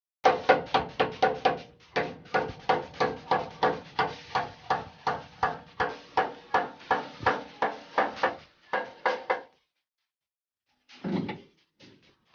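Diesel engine of a rice mill running rough with a heavy, regular knock, about four beats a second, that slows and stops about nine seconds in. A couple of short thuds follow near the end.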